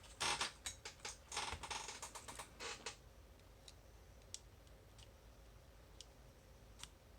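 Small metal clicks and scrapes from tools working at a padlock's core C-clip, a dense cluster for about three seconds, then a few isolated single ticks.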